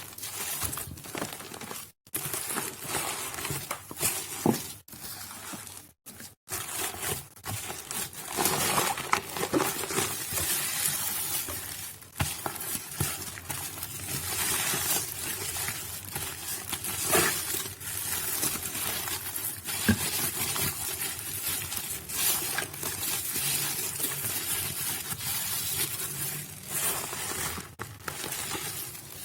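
Soaked Nuvo bar soap being crushed and squished by hand: a continuous crackling crunch full of small irregular snaps, with brief pauses about two and six seconds in.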